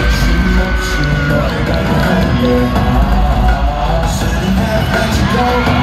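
Live pop music played loud through an arena sound system, heavy in the bass, with the audience screaming and whooping over it.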